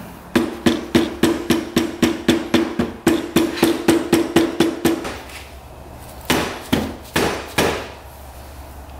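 A hammer tapping quickly on the stuck clutch cover of a Honda CR125 engine, about four blows a second with a ringing tone, then a few slower, separate blows; the cover is being knocked loose from its gasket and sealer.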